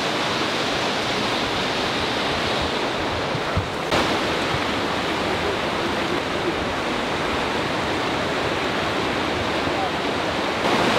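Water pouring through a dam's open gates and churning below it, a steady rushing noise, with a brief knock about four seconds in.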